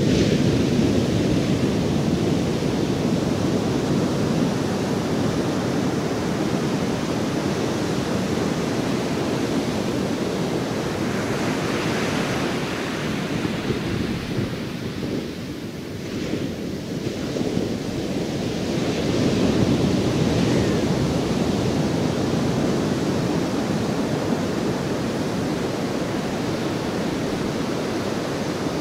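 Ocean surf: a steady rushing of waves, swelling into a louder hiss about twelve seconds in and again around twenty seconds, with a lull between.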